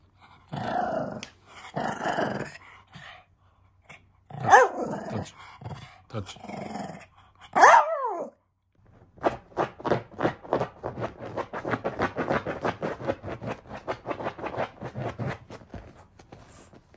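Shih Tzu dog growling and grumbling in short bursts, with two sharp yelping barks, the second one dropping in pitch. Near the end comes a quick, even run of short sounds, about five a second.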